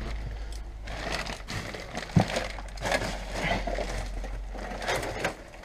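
Footsteps crunching and scraping over rubble and debris, with a sharper knock a little over two seconds in.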